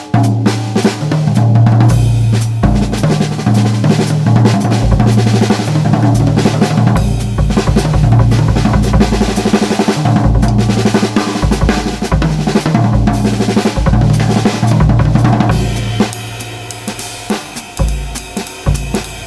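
Pearl Midtown compact drum kit played with maple sticks: a steady groove on snare, bass drum and cymbals, with rimshots. About 16 s in the playing gets quieter and lighter.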